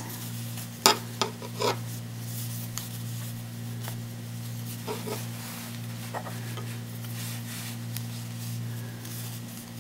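Faint rubbing and scratching of yarn being drawn over a wooden crochet hook and through stitches as crochet stitches are worked, with a click about a second in. A steady low hum runs underneath.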